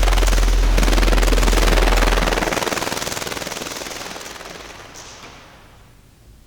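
Firework crackling in a dense, rapid string of pops, loud for about two seconds and then dying away over the next few. A deep low hum under it cuts off about two and a half seconds in.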